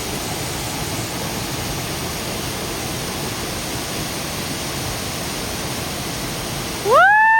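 Steady rush of a waterfall's falling water. Near the end it cuts off abruptly and a loud cat-like meow rises and falls in pitch.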